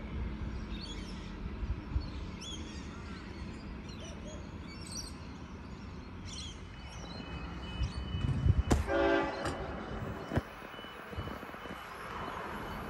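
Birds chirping over a low rumble, then a train horn sounds once, briefly, about nine seconds in, as the rumble of the train grows.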